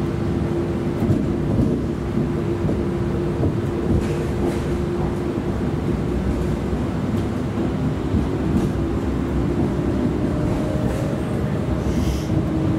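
Inside a TriMet MAX light rail car running along street track: a steady rolling rumble with a constant hum over it and a few faint clicks.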